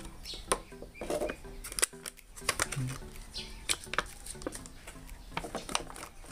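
Clear plastic carburetor case clicking and rattling as the box is opened and the carburetor is handled in it: a run of irregular sharp clicks and knocks, over faint background music.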